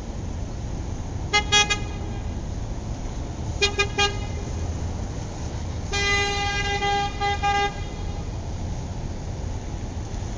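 Car horn honking in bursts over a steady low rumble: two quick toots about a second and a half in, three short toots around four seconds, then a longer blast of about a second followed by two short toots.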